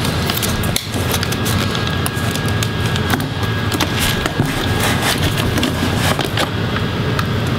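Plastic clicks, knocks and rattles of a Dell Inspiron 17 7778 laptop's palm rest and display assembly being handled and turned over on a table, over a steady low hum.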